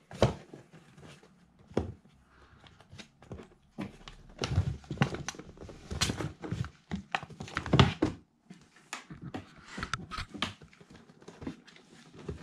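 Two kittens scuffling on a cardboard box: paws scrabbling and thumping on the cardboard and the cardboard rustling, in irregular knocks. The scuffle is busiest from about four to eight seconds in, with the loudest thump near the eight-second mark.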